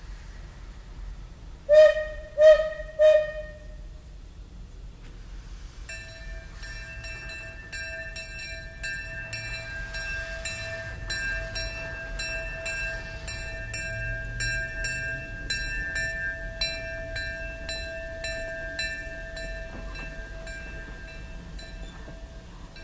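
Steam locomotive C.K. Holliday's whistle giving three short toots, then its bell ringing steadily at about two strikes a second from about six seconds in.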